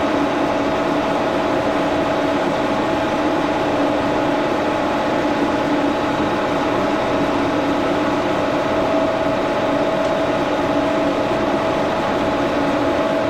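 1942 Brown & Sharpe No. 2 Plain milling machine running steadily while milling a piece of scrap aluminum, a constant machine hum with a steady whine over it.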